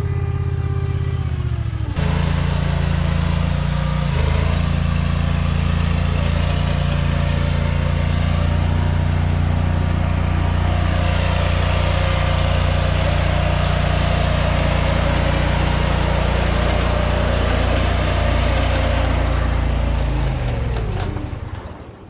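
Engine of a Magnatrac compact crawler backhoe running steadily as the machine drives. Near the end it drops in pitch and dies away as the engine winds down.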